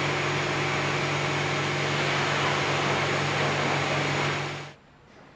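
Lamborghini Murciélago LP670-4 SV's 6.5-litre V12 idling, a steady even drone with a rushing noise over it, which stops about four and a half seconds in.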